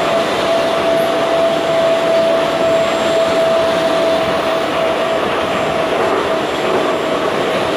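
Budapest Metro Line M3 train, a Soviet-built 81-717-type car, running at speed, heard from inside the passenger car: steady rail and running noise with a steady whining tone that fades a little after about five seconds.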